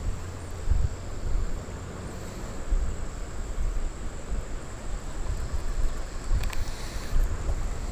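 Wind buffeting the microphone in uneven gusts, over a steady high-pitched insect drone. A few faint clicks come near the end.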